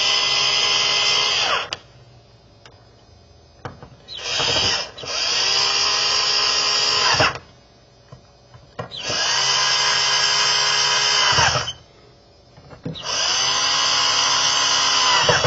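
Handheld power drill driving screws into an EV charger's cover plate in four runs of two to three seconds each. Each run winds up, holds a steady whir, then its pitch falls as the drill stops.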